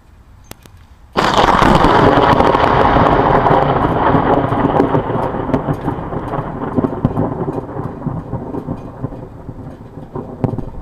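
Thunder from a very close lightning strike, a bolt from the blue striking miles outside the storm: a sudden sharp crack about a second in, then a long rolling rumble that slowly fades.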